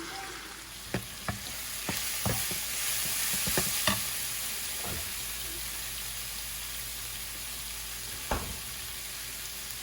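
Cabbage bhaji frying and sizzling in a pan, stirred with a utensil that knocks against the pan several times. The sizzle grows louder about two seconds in.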